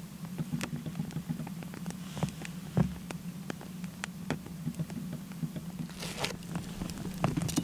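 Split firewood burning in a steel fire pit, crackling with irregular sharp pops, one louder pop with a thump about three seconds in and a brief hiss near the end, over a steady low hum.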